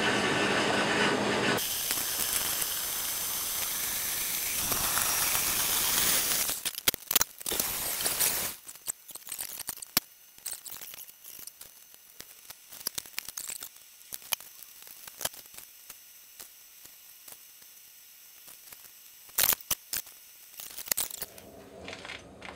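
Gas burner of a small metal-melting furnace running with a steady roar, changing abruptly to a high hiss about two seconds in. From about six seconds come scattered crackles and clicks, then it goes mostly quiet with light ticks and a short run of sharp clicks near the end.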